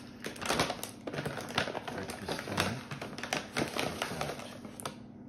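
Crinkling and rustling of a plastic hot-cereal pouch being pulled open and rummaged in by hand, a dense run of irregular crackles that stops shortly before the end.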